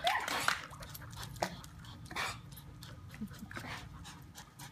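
A dog whimpering and giving a few short, sharp yips, the loudest in the first half second and another about two seconds in.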